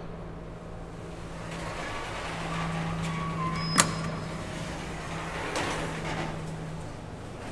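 Elevator hall call button pressed once with a sharp click about halfway through, over a steady low hum and noise from the open elevator landing.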